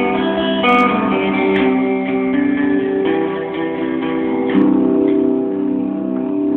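Electric guitar played through an Electro-Harmonix Freeze sound retainer pedal: a frozen chord sustains steadily underneath while new notes and chords are picked over it, and the held chord changes a couple of times. A couple of sharp clicks come in the first two seconds.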